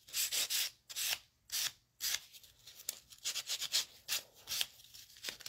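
Spongy nail buffer, medium grit side, rubbed in back-and-forth strokes over sculpted acrylic, each stroke a short hiss. A few slower strokes come first, then quicker ones from about two seconds in.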